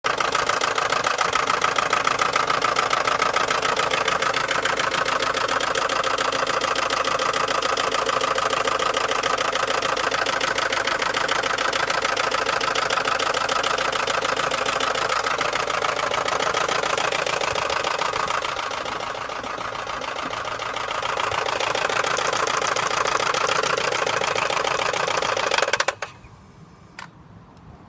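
2003 Volkswagen Golf Mk4 1.6 engine running with a rapid, even knocking. The knocking is the fault the owner is recording. The engine gets a little quieter for a few seconds, then stops suddenly near the end.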